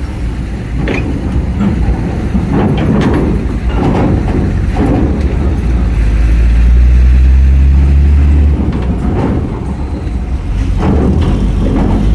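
Diesel trucks driving off a ferry's steel ramp, their engines running close by. Repeated clanks sound as wheels cross the ramp plates. The engine is loudest from about six to eight and a half seconds in, as a truck passes near.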